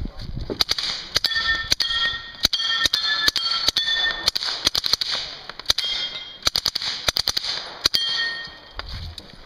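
Short bursts of fire from a suppressed Beretta PM12S 9mm submachine gun, coming in quick clusters for about eight seconds. Steel targets ring with a clang after the hits.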